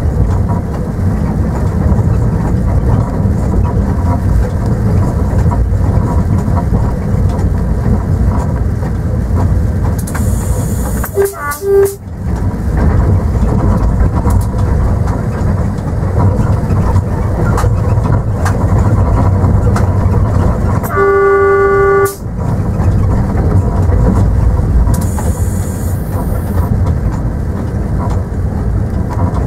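Train running with a steady rumble heard from the driver's cab. The horn gives a short double toot about eleven seconds in and a longer blast of about a second near twenty-one seconds in.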